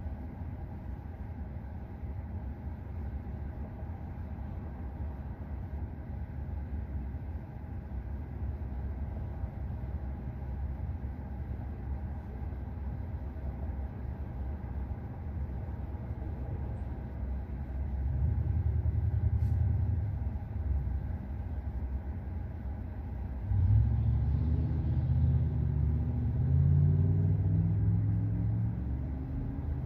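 Road and tyre noise inside the cabin of a moving Tesla Model 3: a steady low rumble that grows louder briefly about two-thirds of the way in, then again for the last few seconds.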